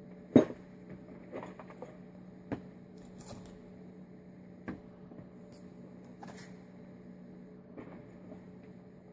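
Light clicks and clinks of Weber carburettor main jets and small parts being handled, a few scattered ones with the sharpest about half a second in, over a steady electrical hum.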